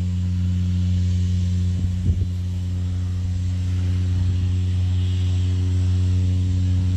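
Propeller airplane's piston engine running at a steady idle, a low even drone, with a couple of faint knocks about two seconds in.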